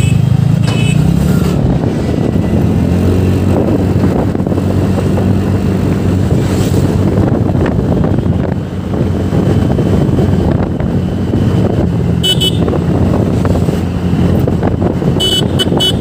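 TVS NTorq 125 scooter's single-cylinder engine running steadily under way, with a constant noisy drone. A vehicle horn beeps once about three-quarters of the way in, then a few quick beeps near the end.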